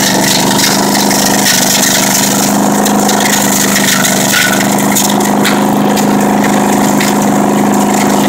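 Leaf vacuum (leaf loader) running steadily with a constant engine and fan hum, while leaves raked into its suction hose make a few brief rattles.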